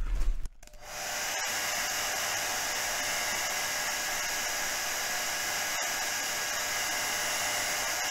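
Hot-air blower starting up about a second in and then running steadily, blowing heat under the iPad Air's digitizer glass to soften its adhesive. A short, louder rubbing noise comes before it at the very start.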